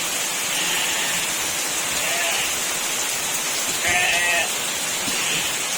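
Very heavy rain making a steady hiss, with goats bleating over it: a short bleat about two seconds in, a clear, louder one about four seconds in, and a faint one shortly after.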